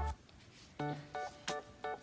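Background music: a light instrumental tune of short, separate notes, about three a second, coming in just under a second in after a brief near-quiet gap.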